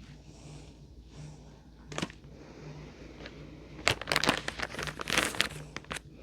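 Plastic bag crinkling as it is handled: a single click about two seconds in, then a quick run of crackly rustles for the last two seconds.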